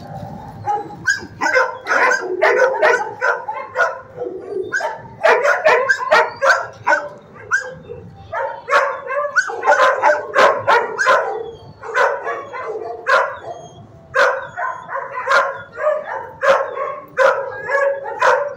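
Shelter dogs barking over and over, several sharp barks a second at times, with a couple of brief lulls.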